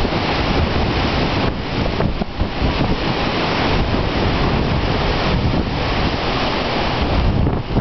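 Strong wind blowing loudly in gusts and buffeting the microphone with a low rumble: the rising wind ahead of a dust storm.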